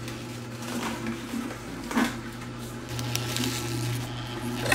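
Kuvings whole slow juicer's motor and auger running with a steady low hum as whole kale leaves are pushed into the feed chute and crushed, with brief louder crunches about two seconds in and near the end.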